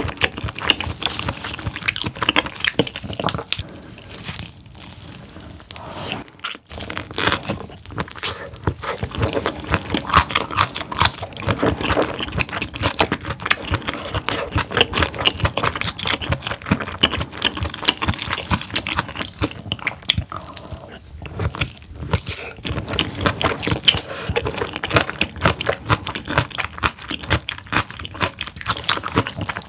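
Close-miked chewing of whole steamed squid: a dense run of small mouth clicks and smacks, dipping briefly about six seconds in.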